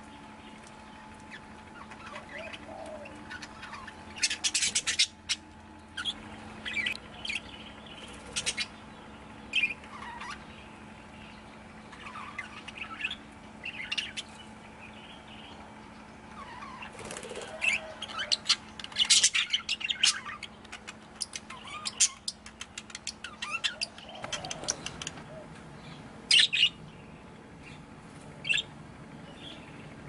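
Budgerigars chirping and chattering: short rising and falling calls at irregular intervals, with several quick bursts of rapid chatter, the busiest a little past halfway.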